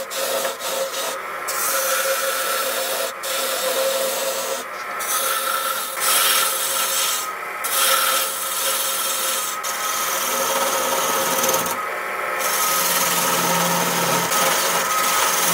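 A turning tool cutting a spinning wooden handle on a wood lathe: a continuous scraping hiss as it peels off shavings, broken by a few brief pauses when the tool lifts off the wood. The lathe hums steadily underneath.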